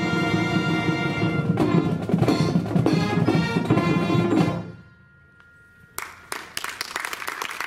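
School marching band with brass and drums playing the last bars of a piece, ending abruptly about four and a half seconds in. After a short pause, the crowd breaks into applause.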